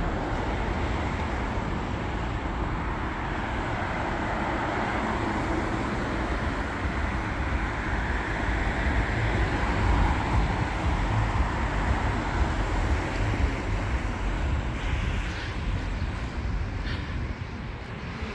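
Outdoor town-street ambience: steady traffic noise with wind rumbling on the microphone, growing a little louder around the middle.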